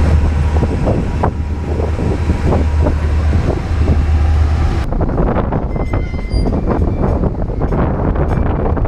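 Moving El Chepe passenger train heard from the carriage: a steady low rumble with scattered knocks and rattles. About five seconds in the sound changes abruptly to a dense clatter of rapid knocks and rattles with a few faint high tones.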